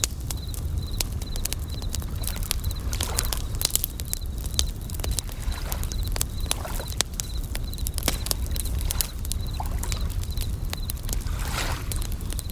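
Campfire crackling with many sharp pops, over a low rumble, while bell crickets (suzumushi) chirp in high, short repeated notes and waves wash in softly every few seconds.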